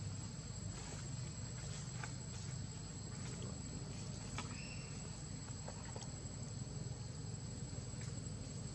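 Outdoor ambience: a steady high insect drone over a low rumble, with a few faint clicks and a short chirp about four and a half seconds in.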